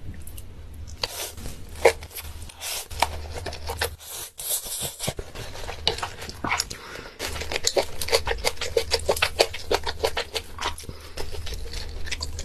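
Close-miked mouth sounds of a person slurping and chewing black bean noodles: a dense run of quick wet smacks and clicks, busiest in the second half.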